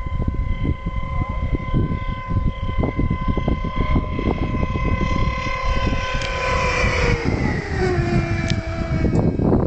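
Puchacz two-seat glider whistling in flight during a low pass. The steady high whistle grows louder as it approaches, then drops in pitch as it sweeps past about seven seconds in. Wind rumbles on the microphone throughout.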